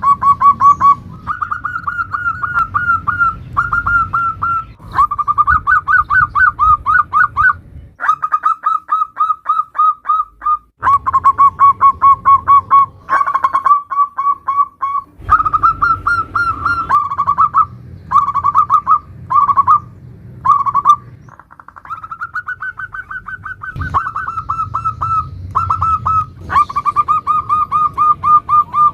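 Zebra dove (perkutut) singing in the 'nutut' style: bouts of rapid, staccato cooing notes repeated in quick series, separated by short pauses.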